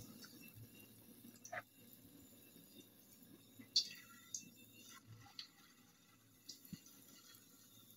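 Faint, sparse pops and crackles of puff puff dough deep-frying in hot oil, with one louder click about four seconds in as more sticky batter is dropped into the oil by hand.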